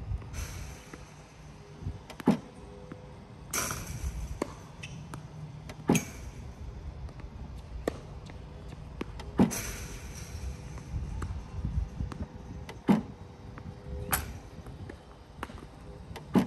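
Tennis Tutor ProLite battery ball machine launching tennis balls with a sharp pop about every three and a half seconds, five times. Fainter knocks of balls being struck and bouncing fall between the pops, over a faint steady hum.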